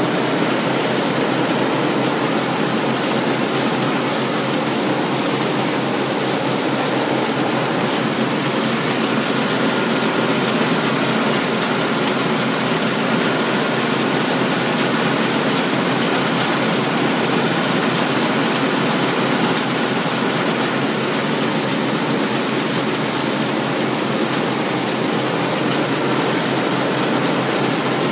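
White 8900 combine harvester running steadily while harvesting soybeans: an unbroken, even mechanical rush that holds the same level throughout.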